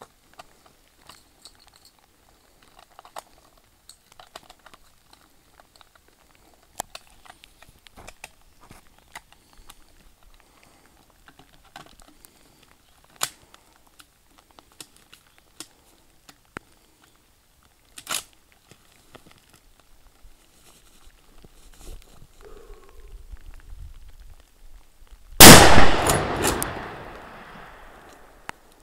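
One shot from a Blaser Tactical 2 straight-pull rifle in .338 Lapua Magnum, very loud, about three-quarters of the way through, echoing away over a few seconds. Before it there are only scattered faint ticks and clicks.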